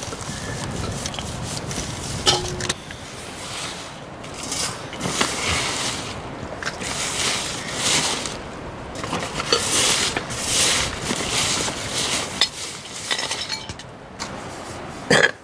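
A hand-turned stone quern grinding corn, stone rasping on stone, at first. Then hands scrape and sweep the flour across the stone slab into a steel plate, in repeated scraping surges with scattered clinks and a sharp clink near the end.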